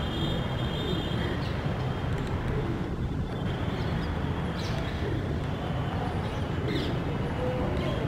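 Steady low outdoor rumble with a few short, high bird chirps scattered through it, including one around two-thirds of the way in.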